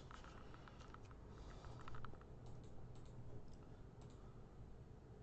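Faint, scattered light clicks and taps in a quiet room.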